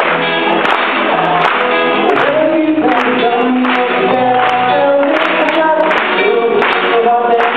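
A man singing into a microphone through a PA over loud backing music with a steady beat.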